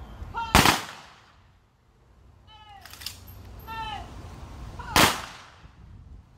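Funeral honour guard firing rifle volleys: a single sharp crack about half a second in and another about five seconds in, each with a short echo. Each volley comes after short shouted drill commands.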